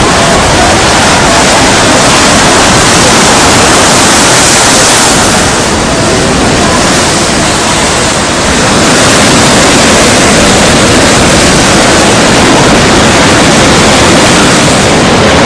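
Strong wind blowing on the sea and buffeting the microphone, mixed with the rush of surf: a loud, steady rush of noise that eases briefly a little past the middle.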